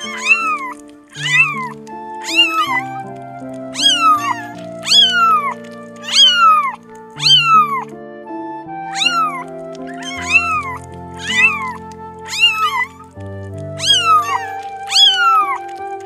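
Young kittens mewing over and over, high thin calls that each fall in pitch, one or two a second and sometimes overlapping. Background music with slow held chords plays underneath.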